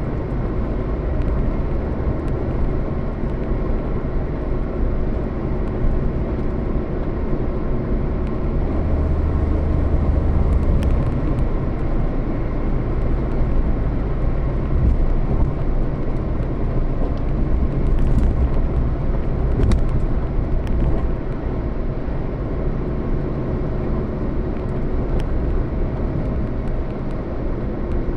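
A road vehicle in motion: a steady low rumble of engine and road noise throughout.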